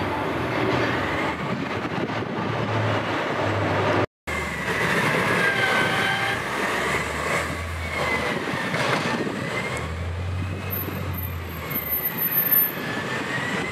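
Blizzard wind blowing hard, with a high wavering whine that slowly rises and falls in pitch. The sound cuts out briefly about four seconds in.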